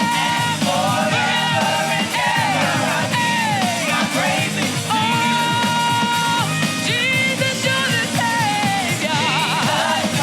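Live gospel praise music: a band accompanying a lead singer who holds long notes and sings melodic runs, with a wavering vibrato note near the end.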